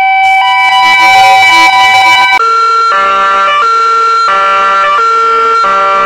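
Edited ambulance siren sound effects. First many copies of an ambulance siren layered at once, a dense chord of tones, for about two and a half seconds. Then a cartoon-style ambulance siren repeating a short phrase about every two-thirds of a second.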